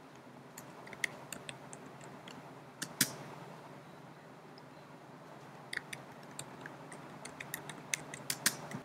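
Computer keyboard keys clicking as text is typed: a few scattered keystrokes, a louder click about three seconds in, then a quicker run of keystrokes from about six seconds in, over a faint steady hiss.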